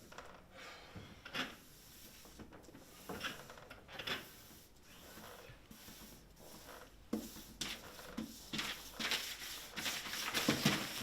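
Scattered light clicks, knocks and rustles, as of small objects being handled, becoming busier and louder near the end.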